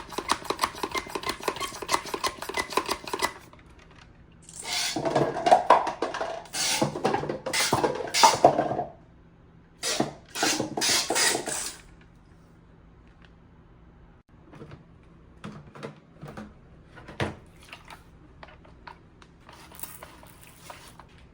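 Rapid clicking and clattering of hard pieces being handled: a quick run of clicks, then several louder rattling bursts, then scattered single clicks.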